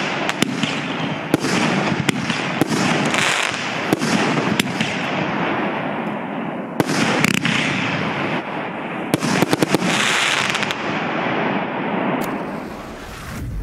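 A 25-shot, 50 mm consumer fireworks battery (cake) firing: sharp bangs, several in quick succession, over a steady dense rushing noise that fades out near the end.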